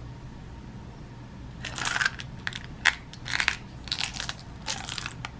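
Lead airgun pellets shifting and rattling inside a metal tin as it is turned over in the hand: a series of short rattling bursts starting about a second and a half in, with one sharp click.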